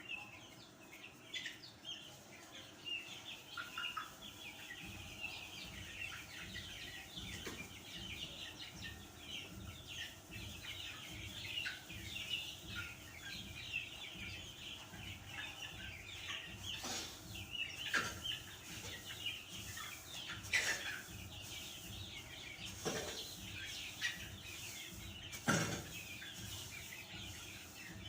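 A shed full of chickens clucking and cheeping without a break. In the second half, a short scrape or knock every two to three seconds as the bedding litter is raked over.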